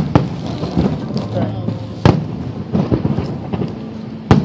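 Fireworks shells bursting in the air, three sharp booms about two seconds apart with smaller pops between them, over crowd chatter.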